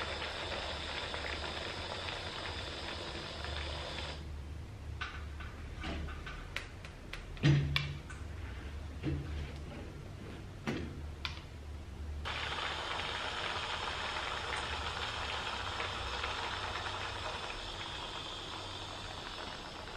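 Small handheld portable blender motor running as it purees avocado, banana and breast milk. It stops about four seconds in, a few knocks sound as the jar is handled on the table, and it runs steadily again for the last eight seconds.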